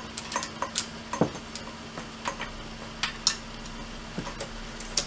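Scattered small clicks and knocks of hands working the umbrella holder on a studio light stand, loosening its knob to fit the umbrella shaft, over a faint steady hum.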